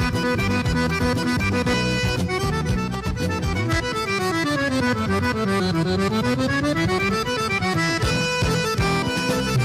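Instrumental passage of a milonga with the accordion out in front. In the middle it plays a long run of notes stepping down and then climbing back up.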